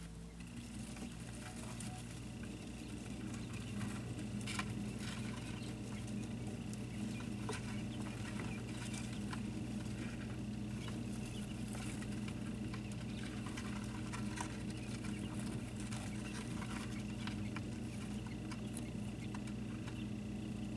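Light, irregular pattering and ticking of day-old quail chicks moving and pecking about, over a steady low mechanical hum.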